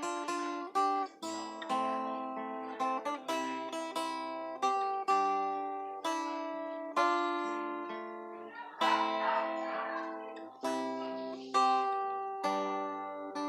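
Acoustic guitar (violão) being played: a run of strummed chords and plucked notes, each struck and left to ring and fade before the next.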